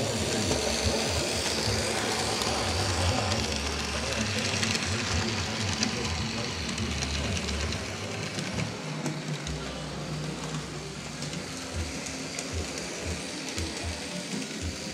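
Model train running along the track past the camera: a steady electric-motor whirr with wheel and track rumble, a little quieter after about eight seconds.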